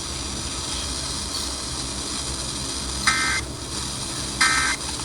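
Emergency Alert System end-of-message signal: two short bursts of warbling digital data tones about 1.3 s apart, starting about three seconds in, closing the severe thunderstorm warning broadcast. Before the bursts there is only a steady hiss and low hum.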